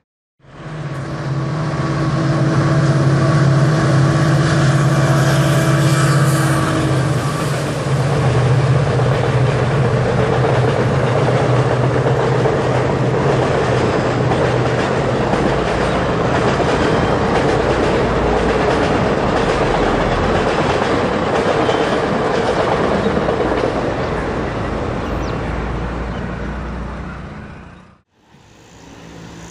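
A WDG-4 diesel locomotive passes close by, its engine giving a steady low drone for the first several seconds. Then the express train's passenger coaches roll past with a continuous clattering wheel-on-rail noise, which cuts off suddenly near the end.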